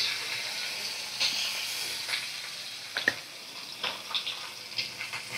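Kath koi (climbing perch) pieces frying in hot mustard oil in a kadai: a steady sizzle broken by several sharp pops and crackles of spitting oil.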